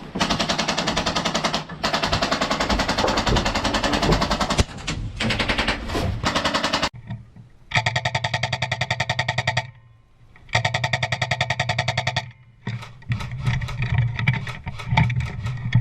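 Airsoft electric gun firing on full auto: several long bursts of rapid, evenly spaced shots lasting two to three seconds each, with short pauses between them and shorter bursts near the end.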